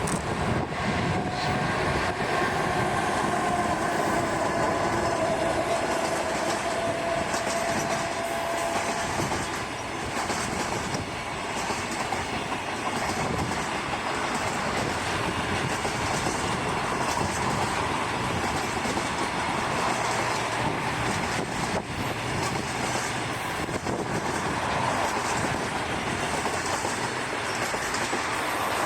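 Long container freight train of Koki flat wagons, hauled by an EH500 electric locomotive, rolling past: a steady rumble with wheels clattering over the rail joints. A faint whine from the wheels is heard during the first third.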